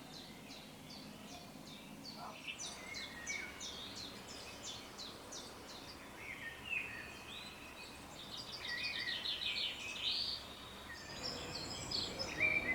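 Birds singing outdoors: a run of short high notes repeated about three times a second, then varied song phrases with a quick trill.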